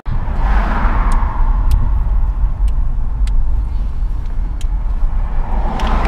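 Car cabin noise while driving: a steady low road and engine rumble, with a few light clicks.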